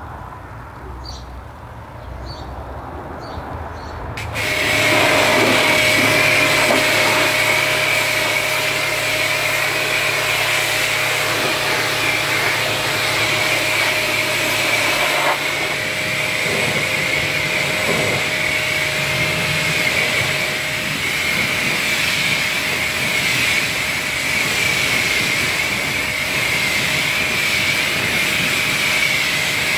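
Electric pressure washer starting about four seconds in, then running steadily with a high motor whine while it sprays water, rinsing foam off a car's engine bay.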